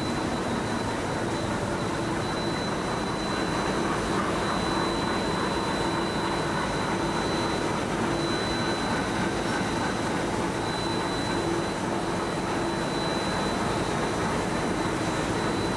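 Six-colour central-impression flexographic printing press running with film feeding through it: a steady mechanical running noise with a low hum and a thin, high, steady whine.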